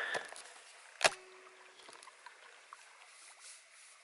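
One sharp knock on the canoe's hull about a second in, with a short hollow ring after it, amid the faint dripping and swishing of a paddle working in calm water.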